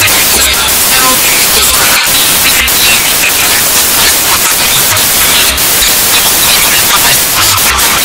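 Loud static-like white noise: a song recording distorted and bass-boosted until it is mostly hiss, with irregular low bass thumps underneath.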